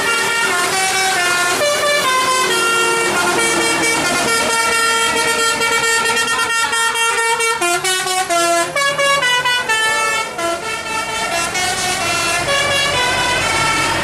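Bus 'telolet' horn, a Basuri multi-tone air horn, playing a fast melody of held notes that step up and down every half second or so, loud throughout.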